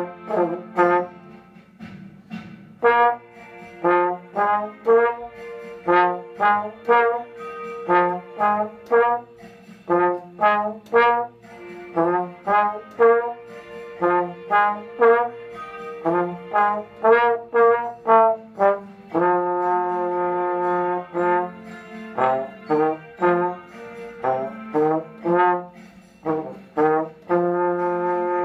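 Slide trombone playing a band part: mostly short, detached notes in a steady rhythm, with longer held notes about two-thirds of the way through and again near the end.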